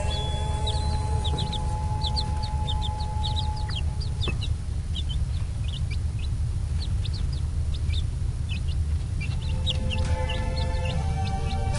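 Newly hatched chicks peeping: many short, high, downward-sliding peeps, several a second, over a steady low rumble. Music sounds faintly underneath at the start and comes back near the end.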